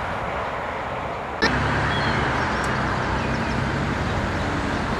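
Steady outdoor rumble of distant road traffic with a low hum, and a few short high chirps. The sound steps up abruptly about a second and a half in.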